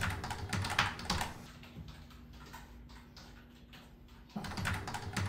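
Typing on a computer keyboard: runs of key clicks at first and again from about four seconds in, with a quieter pause between that leaves a faint steady hum.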